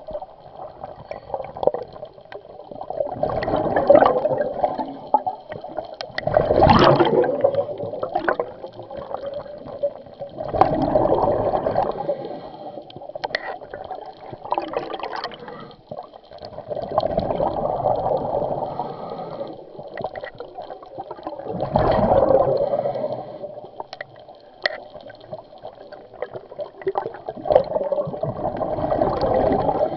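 Scuba diver breathing through a regulator underwater: exhaled bubbles gurgle out in bursts roughly every five to six seconds.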